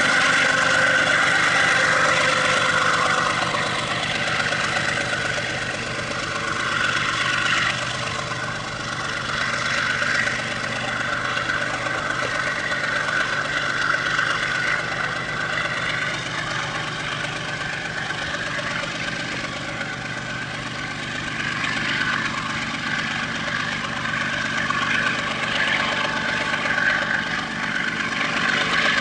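Freight train with distributed-power (LOCOTROL) diesel locomotives passing: the diesel engines run steadily and the wagons roll over the rails, under a steady high-pitched whine.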